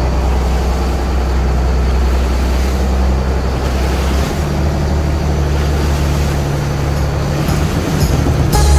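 Boat motor running steadily: a loud low drone under a rushing noise, its pitch shifting about four seconds in.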